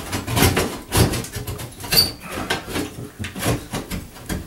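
Irregular knocks, scrapes and clicks of the replacement fan motor assembly being handled and worked into the bathroom fan housing, with one sharper click about two seconds in.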